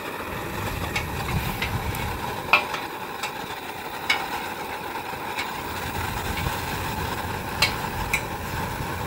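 Outdoor gas wok burner running with a steady rushing flame, while seasoning oil burning onto a steel wok crackles with scattered sharp pops.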